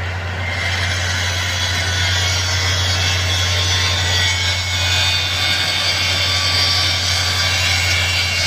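Steady machinery noise: a constant low engine-like hum under a loud, even rushing noise that grows slightly louder over the first couple of seconds.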